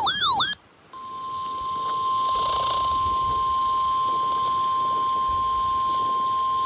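NOAA Weather Radio warning alarm tone: one steady, single-pitched tone near 1050 Hz that starts about a second in, over receiver hiss. It signals that a new warning is about to be broadcast. A brief warbling tone that swoops up and down twice comes before it, right at the start.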